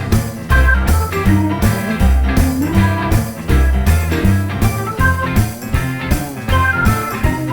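Background music: a guitar-led track with a heavy bass line and a steady beat.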